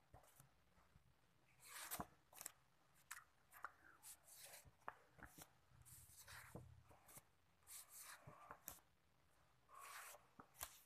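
Stiff paper mount sheets being lifted, slid and laid down one after another: faint short rustles and swishes with soft taps.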